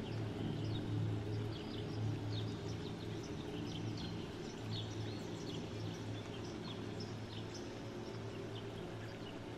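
Birds chirping, many short high chirps scattered throughout, over a steady low hum.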